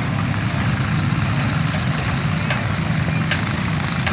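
Demolition derby car engines idling, a steady low rumble with a few faint clicks.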